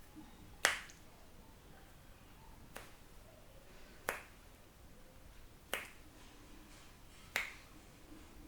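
Five sharp snaps from an Indian barber's massage, about one every second and a half, the first the loudest, over a quiet room background.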